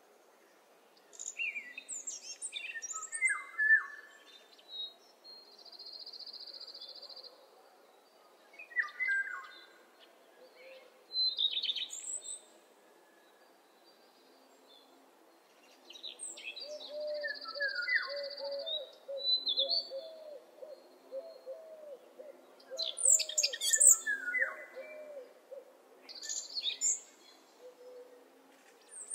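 Morning birdsong: several songbirds chirping and trilling in short phrases, with a brief lull near the middle. In the second half a low call repeats steadily for several seconds under the chirps.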